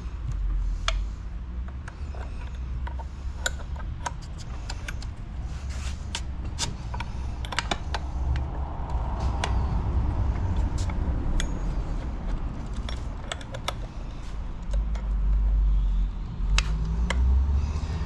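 Scattered clicks and light metal clinks as a T-handle wrench turns the chain tensioner screw on a chainsaw and the segmented Powergrit chain is shifted on its bar, over a low steady rumble.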